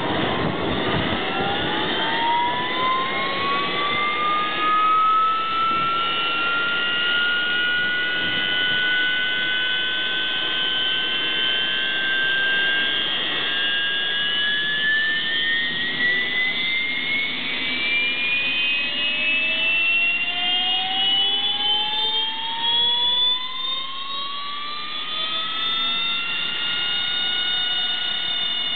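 Harrier's Rolls-Royce Pegasus turbofan starting up: a rising whine over a rushing noise that climbs in two stages, the second from about halfway through, then settles to a steady high whine near the end as the engine spools up to idle.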